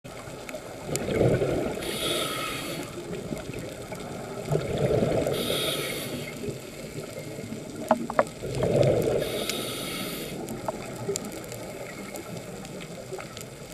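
Scuba diver breathing through a regulator underwater: three breaths about four seconds apart, each a rush of bubbles with a hiss from the regulator. Two short clicks come just before the third breath.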